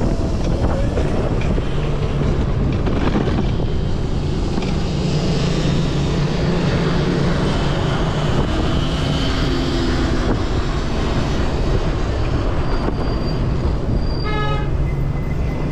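Wind on the microphone and road noise from a Razor RSF electric dirt bike riding through city traffic, with a steady low hum from about two to nine seconds in. A short pitched beep sounds near the end.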